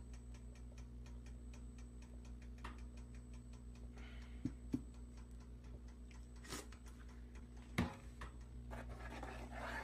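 Faint steady hum with a fast, even ticking, and a few sharp clicks of a metal slotted spoon against the pot as noodles in a thick sauce are stirred.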